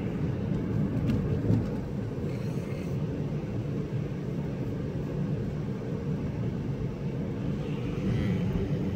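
Car driving on a wet, slushy road, heard from inside the cabin: a steady low rumble of tyres and engine, with a brief bump about one and a half seconds in.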